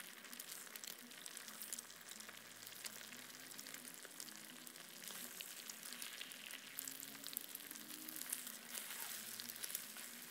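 Chicken eggs frying in hot oil in a wok: a steady sizzle with small crackling pops as a wooden spatula stirs them, the eggs being fried until set and dry.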